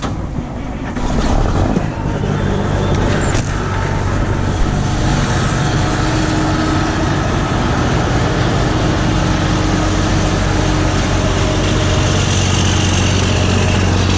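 Semi truck's diesel engine starting up about a second in, then idling steadily with a low, even hum.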